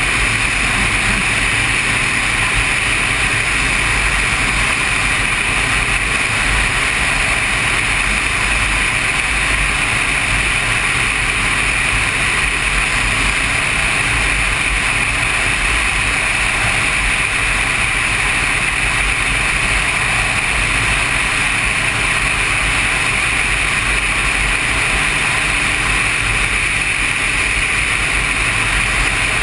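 Motorcycle cruising at a steady speed: engine and wind noise blend into one even rush that holds steady, with no change in speed or gear.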